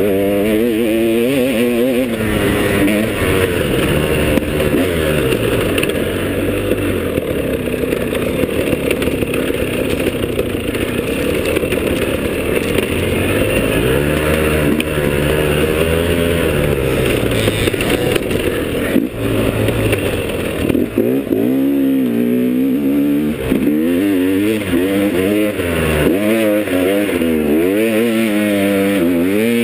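Enduro dirt bike engine ridden hard on a dirt trail, its revs rising and falling over and over as the throttle is opened and closed, with quicker rev swings in the last third.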